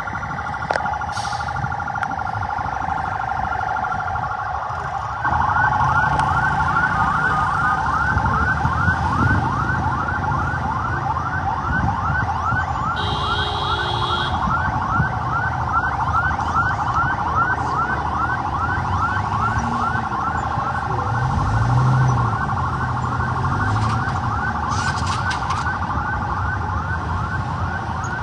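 Police vehicle siren: a steady tone at first, then about five seconds in it gets louder and switches to a fast yelp of repeated rising sweeps, two to three a second, over a low rumble.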